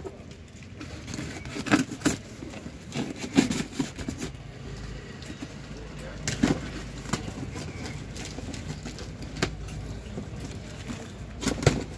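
Packing tape being cut and torn and the flaps of a corrugated cardboard carton pulled open by hand: scattered crackles, scrapes and rustles, every second or two, over a low steady rumble.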